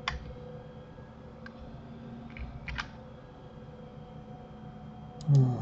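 Computer mouse clicks, a few scattered ones and two quick double clicks, over a steady low hum; near the end a short, loud wordless vocal sound from a man.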